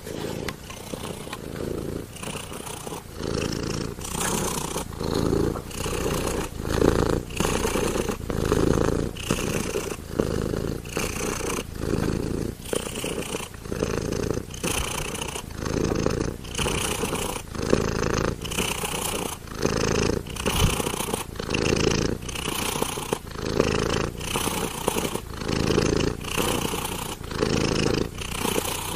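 A domestic cat purring steadily, the purr swelling and fading with each breath about once a second.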